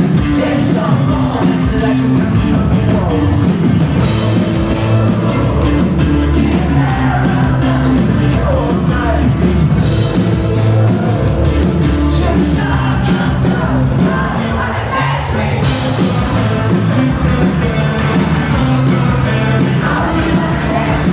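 Live rock band playing loudly and without a break: drums, bass and guitars under a singing voice.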